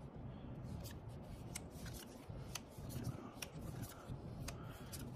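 Magic: The Gathering trading cards being handled and laid onto piles on a playmat: soft sliding rustle of card on card with a string of light clicks as cards are set down.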